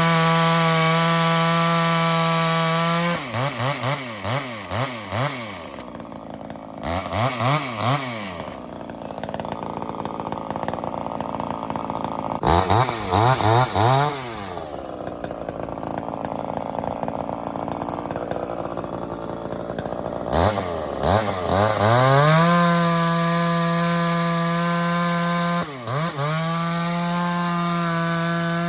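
Homelite XL-76 chainsaw with a pipe-modded exhaust running at full throttle and blipped up and down several times. Twice it bogs lower in pitch for several seconds as the 24-inch skip-chain bar pulls through the wood, then it is back at steady full revs near the end.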